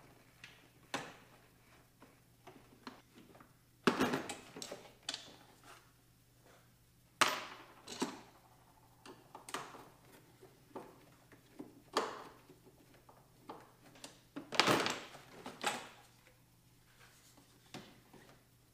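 Hands working at engine-bay hoses and fittings on an Audi B5 S4: irregular clicks, knocks and rattles as parts are handled and pried loose, with a few louder knocks spread through.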